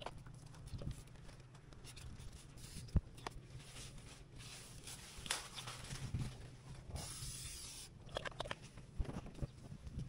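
Hand spray bottle letting out one hiss of about a second near the end, with rustling and small clicks of handling among the plants and soil, and one sharp knock about three seconds in.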